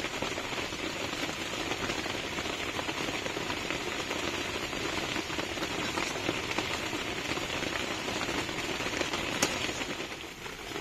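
Fish-egg bora curry boiling in the pan, its gravy bubbling with a steady dense crackle, easing a little near the end. This is the final boil, just before the curry is taken off the heat.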